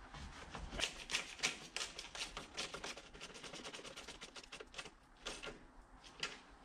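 Hand ratchet clicking in quick runs of strokes as a fastener on the engine's coolant fitting is turned, thinning to a few single clicks near the end.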